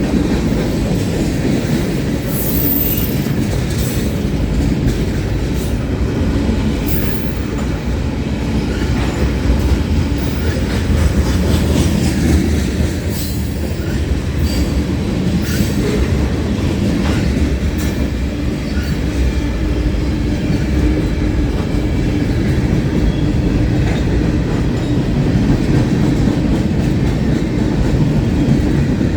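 Freight cars of a long mixed freight train rolling past: a steady rumble of steel wheels on rail, with frequent clicks and clanks and a few brief high wheel squeals.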